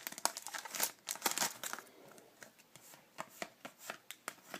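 A foil trading-card pack wrapper crinkling and tearing for the first second and a half or so, followed by sparse light clicks and rustles of cards being handled.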